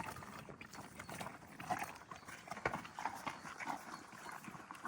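Friesian horses moving about, their hooves knocking and scuffing on the ground in an irregular clip-clop.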